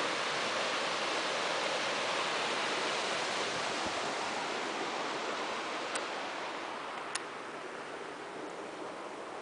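Steady rush of a mountain stream's water running over rocks, easing a little about two-thirds of the way through, with two faint clicks.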